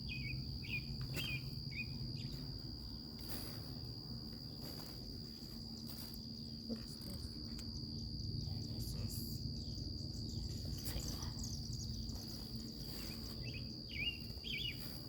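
Insects trilling in one steady, unbroken high tone, with a few short bird chirps near the start and again near the end.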